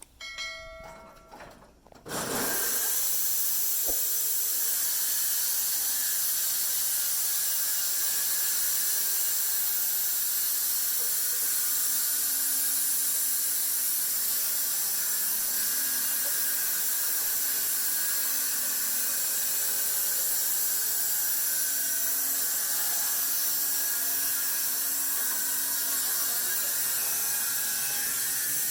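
A sawmill saw cutting through wood. It starts suddenly about two seconds in and then runs at a steady level, with a high, hissing edge.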